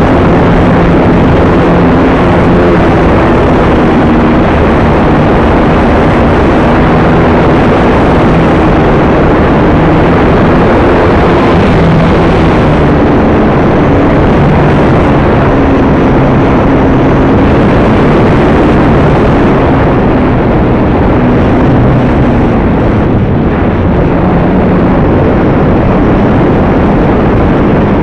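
Onboard sound from an AcroMaster RC plane in flight: loud wind rush with the electric motor and propeller humming underneath, its pitch rising and falling with the throttle.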